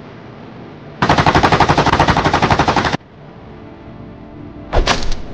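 A rapid, evenly spaced rattle of sharp cracks, starting about a second in, lasting about two seconds and cutting off abruptly, followed near the end by a single short, loud hit.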